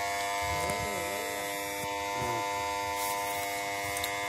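Well's electric water-pump motor running, a steady buzzing hum made of several constant tones.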